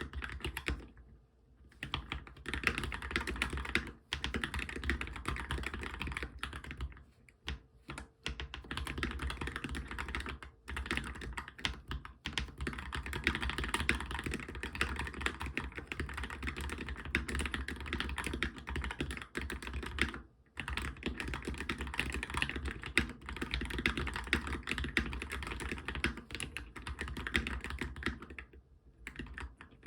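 Steady, fast typing on a Monstargear MK308 mechanical keyboard with fully lubed optical switches: a dense run of key strokes broken by brief pauses every few seconds.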